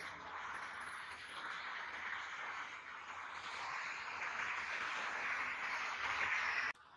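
Steady hissing outdoor background noise with no distinct events, cutting off abruptly near the end.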